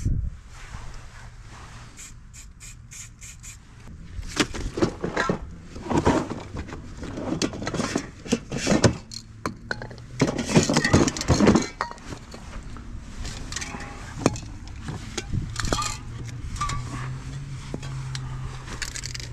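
Metal aerosol spray-paint cans knocking and clinking against each other as they are rummaged through in a plastic crate and picked out, a quick run of clatters. A low steady hum comes in near the end.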